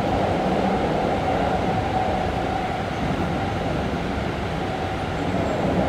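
Keikyu 1500 series electric train (Toyo GTO-VVVF) running at steady speed, heard from inside the passenger car: an even rumble of wheels on track, with a faint steady high tone running through it.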